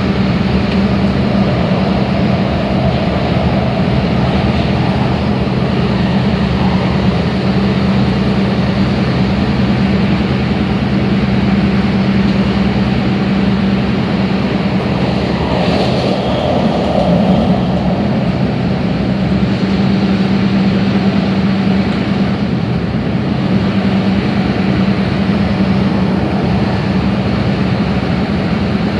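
MTR Tung Chung line K-Train running at speed, heard from inside the car: a steady rolling rumble with a constant low hum. The sound shifts briefly about sixteen seconds in.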